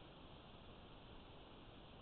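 Near silence: a faint, steady hiss with no distinct sound.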